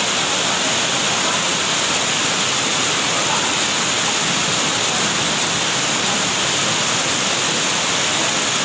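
Muddy rainwater floodwater rushing and churning in a fast torrent, a loud, steady rush of water.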